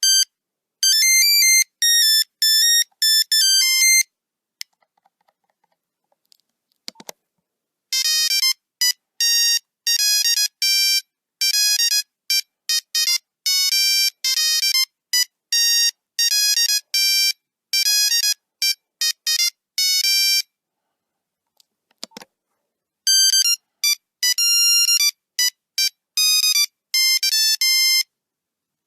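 Nokia 3310 monophonic ringtones: quick tunes of beeping notes, three runs of melody with pauses between them and a short click in each pause.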